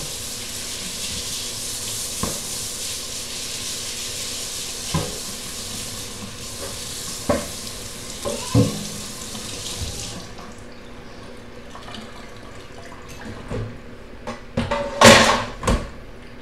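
Kitchen tap running into the sink while dishes are washed, with a few knocks of dishes. The water shuts off about ten seconds in, followed by a few light knocks and a louder clatter near the end.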